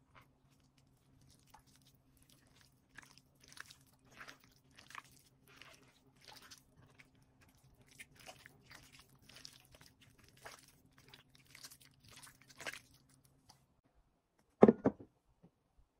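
Raw chicken being mixed by hand with cornflour, egg and sauces in a bowl: irregular wet squelching and crunching. Near the end comes a loud double knock.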